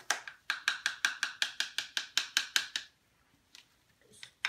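A metal spoon tapping and scraping against a measuring cup in a rapid run of sharp clicks, about seven a second, while scooping peanut butter. It stops about three seconds in and starts again near the end.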